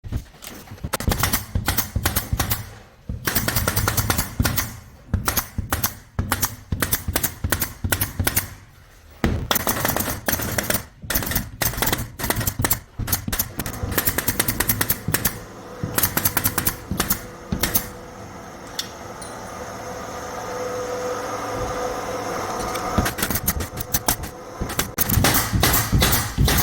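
Keyang 422 pneumatic air stapler firing staples in rapid bursts of sharp shots, several a second. About two-thirds of the way in, the firing stops for a few seconds while a steady hum slowly grows louder. Rapid firing starts again near the end.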